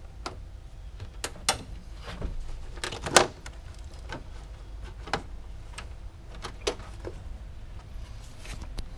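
Scattered plastic clicks and knocks as a car's air-box lid and intake tube are unclipped and lifted off, the loudest knock about three seconds in.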